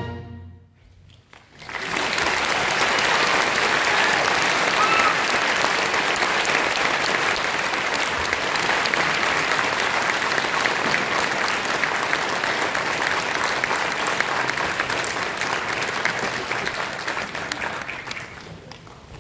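A concert band's final chord dies away in the hall's echo. About a second and a half later an audience breaks into steady applause, which fades out near the end.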